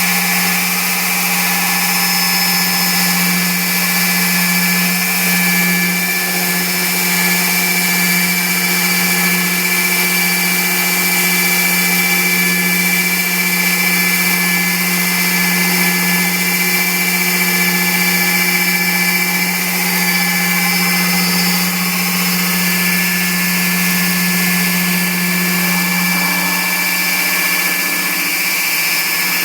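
Pentruder MDU core drill with a 152 mm core bit running steadily under load, a strong even hum with a high whine above it. The tone shifts slightly near the end.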